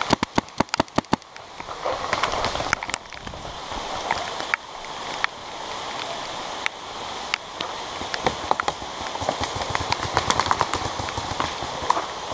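Planet Eclipse Emek 100 paintball marker firing a quick string of about eight shots in the first second, then scattered single shots and pops over a steady hiss of rain.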